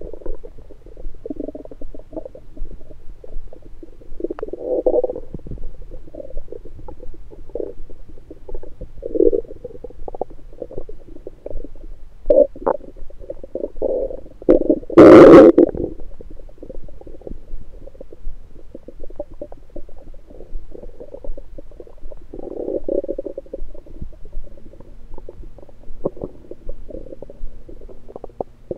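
Human stomach and bowel sounds picked up through an electronic stethoscope on the belly after a meal: irregular gurgles and rumbles of digestion, with one much louder burst about halfway through.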